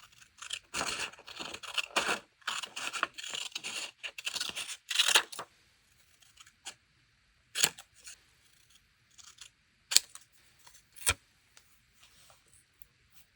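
Scissors cutting paper in quick rasping snips for about five seconds, then three sharp separate clicks a couple of seconds apart.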